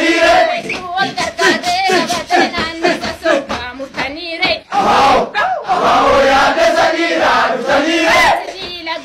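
A group of young men and women singing a chanted Oromo-language song together in unison, loudly.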